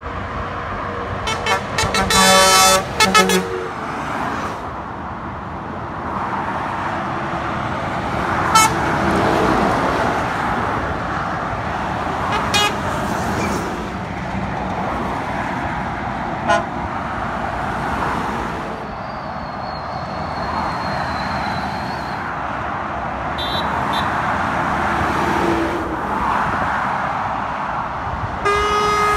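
Truck air horn sounding a quick series of short blasts about two seconds in, and again near the end, over steady highway traffic noise of lorries and cars passing below.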